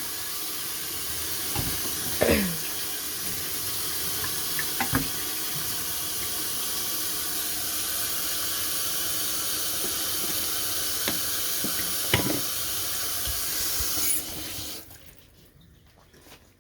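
Kitchen tap running in a steady stream, with a few light knocks of things being handled, then shut off about two seconds before the end.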